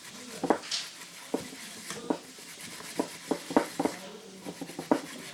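An electric fan's bearing, clogged with dried grease, being rubbed clean by hand with kerosene: irregular light clicks and taps over a soft scraping.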